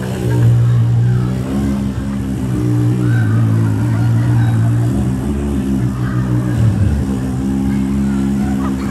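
A long, loud fart sound effect blown as a raspberry into the microphone: a low, steady buzzing that wavers, breaking off briefly about five seconds in and dipping again near seven seconds before carrying on.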